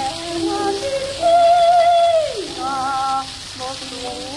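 Woman singing on a 1905 acoustic disc recording: a long note with vibrato that slides down, then shorter wavering notes, over the steady hiss and crackle of old record surface noise.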